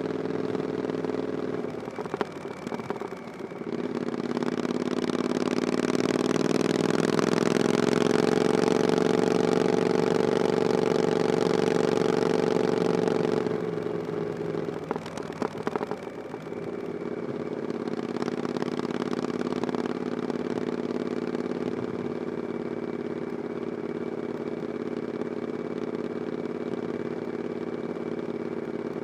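Triumph Scrambler 900's parallel-twin engine through an aftermarket 'VW pipes' exhaust, under way. It eases off briefly, then pulls hard and holds loudest for about seven seconds. It backs off again with a few sharp crackles, then settles into a steady cruise.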